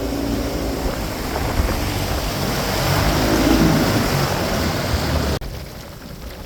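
Boat motor running under way, with water noise and wind buffeting the microphone. It cuts off abruptly about five seconds in, giving way to a quieter rushing noise.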